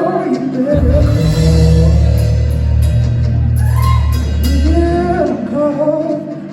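A rock band playing live and loud in an instrumental passage of a thrash-grass song, a melody line over drums. A heavy low bass comes in about a second in and drops out shortly before the end.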